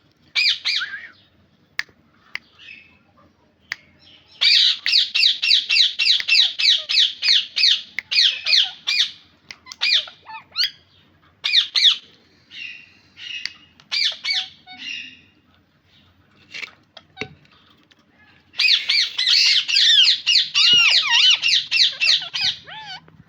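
Green parrot calling in fast runs of harsh, repeated notes, about four or five a second, with shorter single calls between the runs. There are two long runs, one about five seconds in and one near the end.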